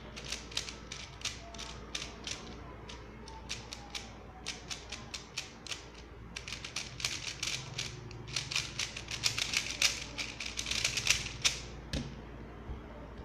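X-Man Tornado 3x3 speed cube being turned fast by hand: a run of quick plastic clicks and clacks as the layers snap round, growing denser and louder in the second half and stopping about twelve seconds in.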